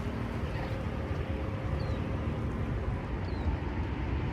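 Steady rumbling outdoor noise, strongest in the low end, with a short high falling chirp about every second and a half, like a bird calling.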